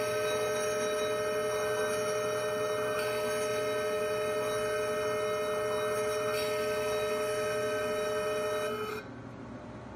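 Two RF ablation probes firing plasma in saline, with two steady held tones from the generators and a fizzing hiss from the probe tips. Near the end the higher tone cuts off, and a moment later the lower tone and most of the hiss stop.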